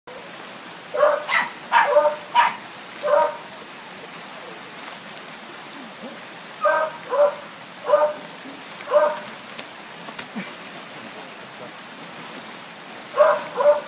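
Terrier barking at a rat hole while ratting, in three short volleys of several sharp barks each, the last starting near the end.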